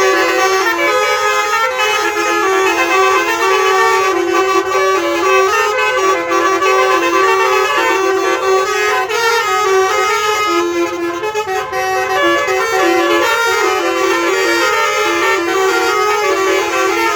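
Bus 'telolet' multi-tone horn playing a tune of quick stepped notes, loud and without a break.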